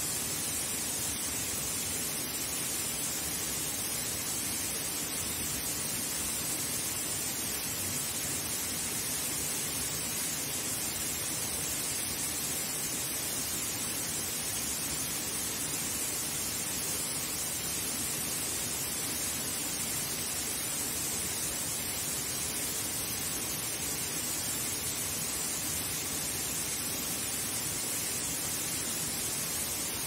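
Steady, unbroken rush of a narrow waterfall falling down a rock face and splashing into a pool.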